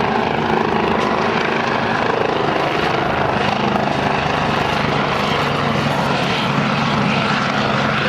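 Lockheed C-130H Hercules turboprop engines droning steadily during a flyby.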